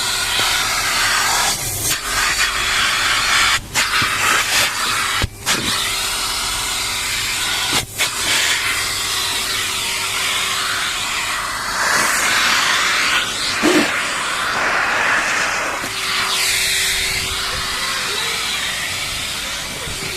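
Henry cylinder vacuum cleaner running continuously with a steady motor hum under a rush of air at the nozzle. The rush keeps changing as the nozzle works over the car's interior, and there are a few brief sharp dips.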